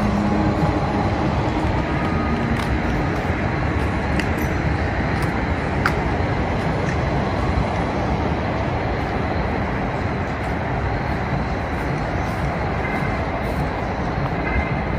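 Steady low rumble of city traffic, with a few faint clicks.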